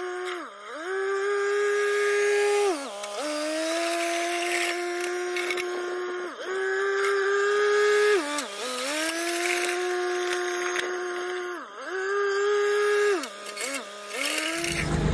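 Kioti CK3510SE compact tractor running under load while dragging a box blade through gravel, a steady whine whose pitch dips briefly and recovers every two to three seconds.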